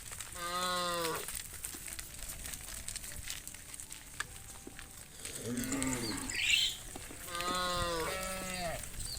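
Cattle mooing: three drawn-out calls, each about a second long and dropping slightly in pitch. A brief, loud, higher-pitched sound comes between the second and third calls.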